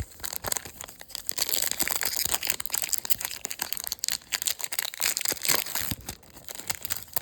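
Wrapper of a baseball card pack crinkling and tearing as it is opened by hand, a dense run of crackles.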